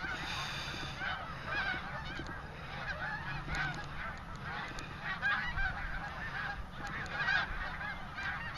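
A huge flock of snow geese calling all at once: a dense, continuous chorus of many overlapping high honks, with a low steady rumble underneath.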